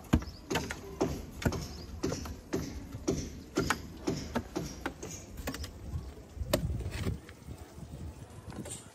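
A spade chopping into dirt while a hole is dug, about two strikes a second, each a sharp thud. The strokes stop about seven seconds in.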